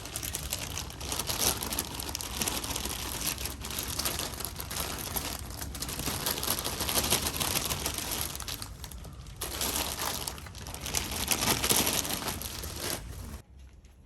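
Busy crinkling and rustling, as of material being handled. It breaks off briefly about nine seconds in and stops about a second before the end.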